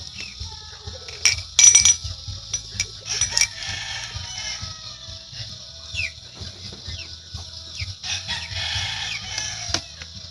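Light clinks and knocks of long beans and other vegetables being handled on a table beside a stainless steel bowl, the loudest a second or two in. A steady high hiss runs underneath, with a few short falling chirps.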